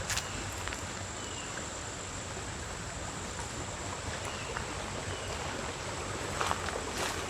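Footsteps crunching on a gravel road, a couple about the start and several more near the end, over a steady outdoor hiss.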